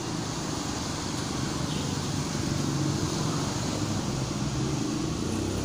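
Steady low hum of a motor vehicle engine running in the street, with general traffic noise.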